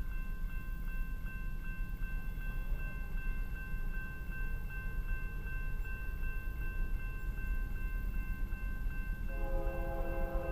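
Railroad crossing warning bell ringing steadily, about three strokes a second, while the crossing gates lower. About nine seconds in, the approaching train's locomotive air horn starts sounding, a chord of several notes.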